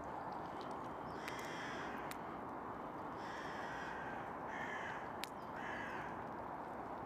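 Crows cawing four times, short harsh calls about a second apart, over steady background noise. Two sharp clicks, the louder one about five seconds in.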